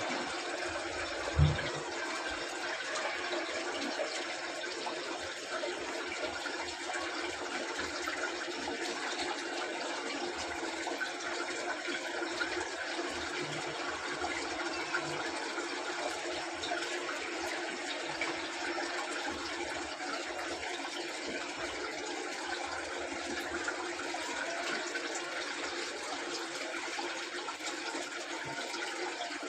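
Samsung inverter washing machine running, with a steady rush of water through the drum. A single sharp thump sounds about a second and a half in.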